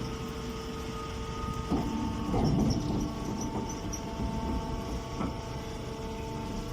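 Engine-driven hay baling machinery running: a steady engine drone with a few short knocks from the working mechanism.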